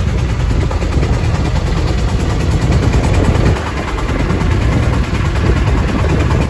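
A fishing boat's motor running steadily while under way, with a constant low rumble. Wind and water rushing past the hull form a noisy hiss over it.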